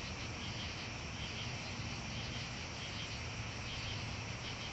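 Crickets chirping steadily over an even outdoor background hiss and a low hum.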